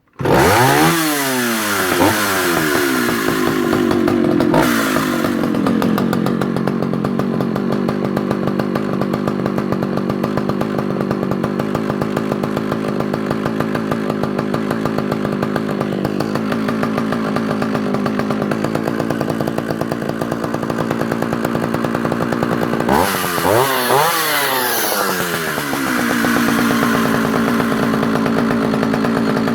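Vintage Partner R16 two-stroke chainsaw engine starting up at once, its revs falling over the first few seconds to a steady idle. About 23 seconds in it is briefly revved up and let back down, then idles again.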